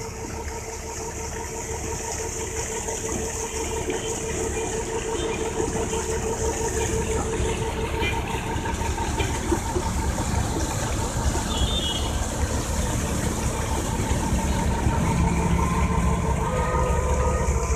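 Tractor engine running steadily to drive a PTO water pump, a constant drone with a steady whine, growing louder through the clip, over the hiss of water gushing from the delivery hose.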